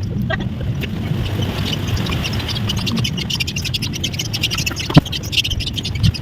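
Scraping and small clicks from hand work on parts, over a steady low hum, with one sharp click about five seconds in.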